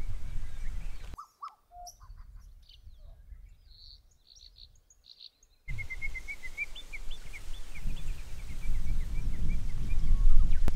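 Wind buffeting the microphone with a low rumble, while small birds chirp and sing. About a second in, the wind noise cuts out abruptly, leaving the bird calls clear. It comes back some four seconds later, with a quick run of high chirps over it.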